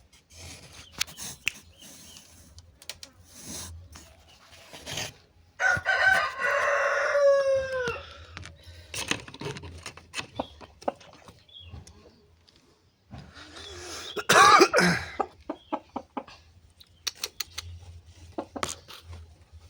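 Rooster crowing: one long crow about six seconds in that falls in pitch at the end, and a shorter crow or call about fourteen seconds in. Scattered light clicks and taps fall between the calls.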